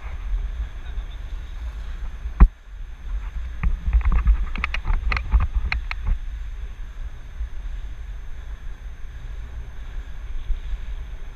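Wind buffeting a helmet-mounted action camera's microphone while riding a bicycle, a steady deep rumble. A single sharp knock comes about two and a half seconds in, and a run of clicks and rattles follows a second or so later.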